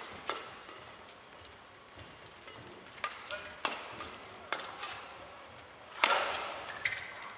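Badminton doubles rally: a string of sharp racquet strikes on the shuttlecock at uneven intervals, the loudest about six seconds in, with brief squeaks of players' shoes on the court.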